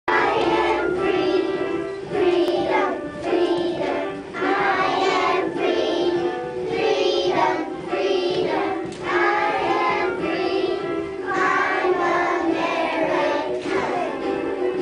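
A group of young kindergarten children singing a song together, in phrases about a second or two long.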